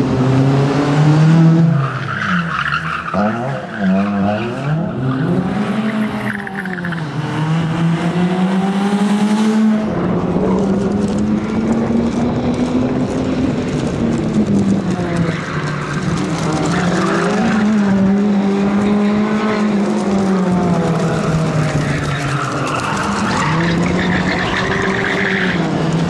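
Suzuki Swift rally car's engine being revved hard and dropping off again and again through a tight course, with tyres squealing at times.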